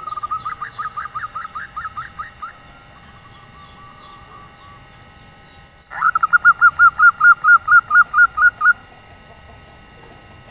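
Female zebra dove giving the rapid run of short cooing notes known as the 'nyelir' call, a call that draws male zebra doves into singing. It comes twice: a run of about a dozen quick notes, then about six seconds in a louder run of about a dozen more.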